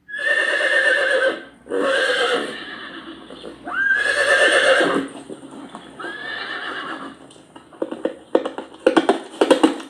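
Horse whinnying several times, the first calls the loudest. Near the end come a quick run of hoofbeats.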